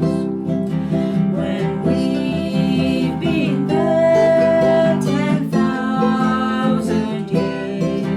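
Acoustic guitar music, plucked and strummed, with a bright held note about halfway through.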